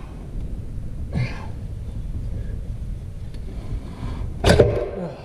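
Parts inside a Ford E4OD automatic transmission being worked loose by hand over a steady low rumble, with a brief scrape about a second in and a sharp knock near the end as a tight part gives.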